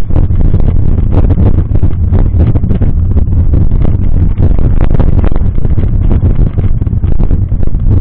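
Loud, continuous low rumble of wind and road vibration on a bike-mounted camera's microphone, with frequent knocks and rattles as the mountain bike rolls over cracked asphalt.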